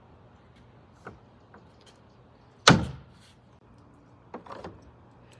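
Rubber mallet knocking a hinge pin into the plastic lid hinge of a wheeled recycling cart: one loud, sharp thunk about halfway through, with a few lighter clicks and knocks around it.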